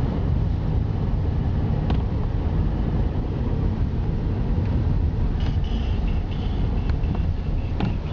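Car driving up a paved road, heard from inside the cabin: a steady low rumble of engine and tyre noise, with a couple of light clicks.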